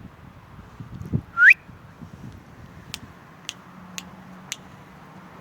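A person whistling once with a short rising whistle, then making four sharp kissing clicks about half a second apart, calling a dog.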